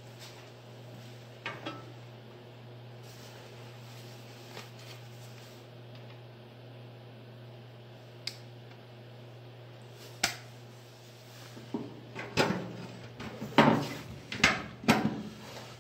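Sheet-metal patch panel being handled and knocked into place for a test fit: a few light clicks, then a run of louder metallic knocks and clatter in the last few seconds, over a steady low hum.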